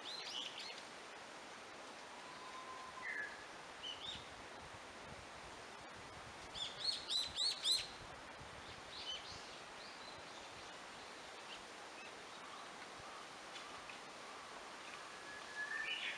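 Small birds chirping in a forest over a steady faint hiss, with scattered single calls and a quick run of about six loud chirps around seven seconds in.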